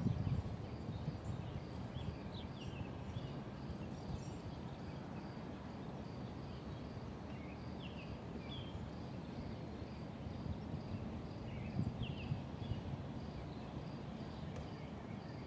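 Outdoor ambience: a steady low rumble, with a few short, falling bird chirps now and then and a faint, evenly repeating pulse high in the background.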